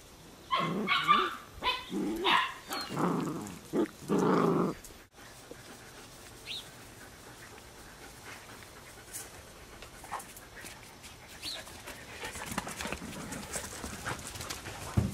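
Puppies barking and yapping in a string of short, loud bursts as they wrestle in play. The barking stops about five seconds in, leaving only faint scattered small sounds.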